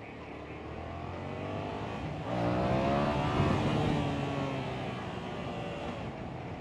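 Yamaha FZ-07's parallel-twin engine running on the road with wind noise. It swells louder and higher in pitch about two seconds in, then eases off.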